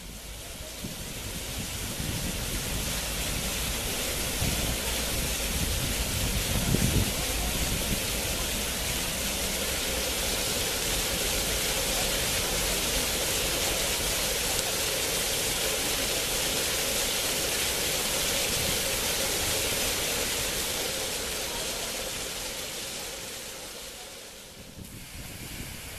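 Water-curtain fountain: a sheet of water falling from an overhead beam and splashing into a stone basin, a steady rushing hiss that eases off near the end.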